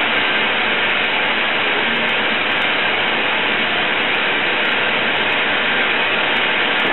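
Glassblowing bench torch burning with a steady, even hiss as its flame plays on a glass bulb.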